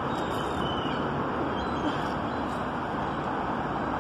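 Steady outdoor background noise: an even, dull hiss and rumble with no distinct events, and a few faint high chirps.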